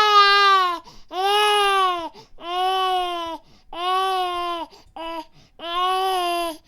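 Infant crying in a run of wails about a second each, with short gaps for breath between them: five long cries and one brief one.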